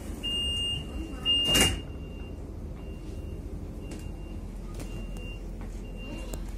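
Door-closing warning signal of a Stadler ESh2 double-deck electric train: a high steady beep repeating about once a second, with a loud burst of noise about one and a half seconds in as the sliding doors shut. The beeps carry on fainter afterwards over the low rumble of the train.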